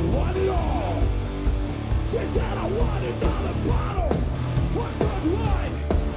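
Aggrotech/industrial metal band playing live: a singer yelling into a microphone over pounding drums, distorted electric guitar and bass.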